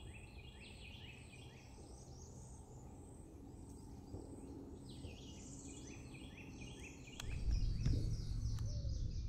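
Northern parula singing: two songs, each a fast run of short high notes, the second climbing in pitch. A low rumble comes in about seven seconds in.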